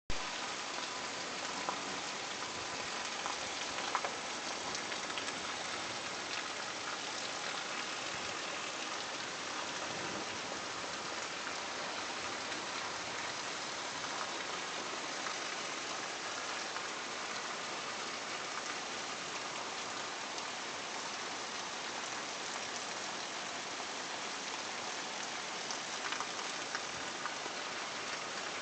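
Steady rainfall, an even hiss of rain, with a few louder single drop hits a couple of seconds in and again near the end.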